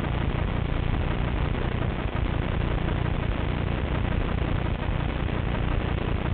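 Steady underwater noise, mostly a low rumble with hiss above it, as picked up through an underwater camera's housing.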